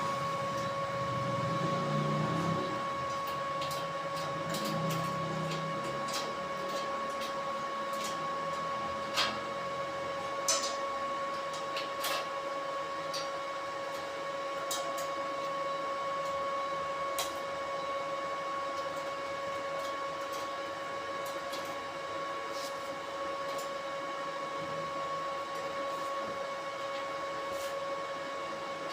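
A steady machine whine holding one pitch, with scattered sharp clicks and knocks over it.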